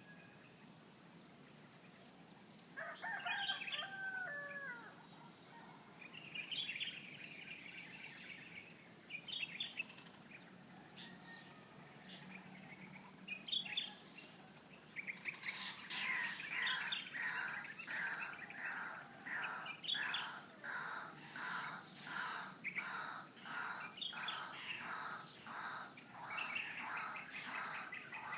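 Birds chirping, with a rooster crowing once about three seconds in. From about halfway a bird repeats a short call over and over, roughly twice a second, over a steady high hiss.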